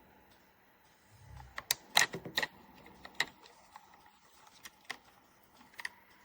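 A series of light, sharp clicks and taps, with a quick cluster of louder ones about two seconds in, then a few single clicks spaced out.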